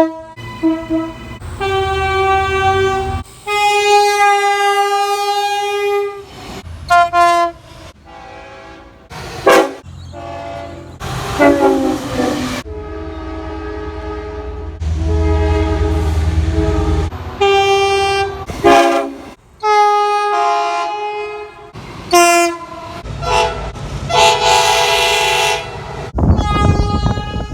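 Train air horns sounding in a quick series of short clips, blast after blast, each a chord of several steady notes, some held a couple of seconds and some short toots, with the rumble of the trains under some of them.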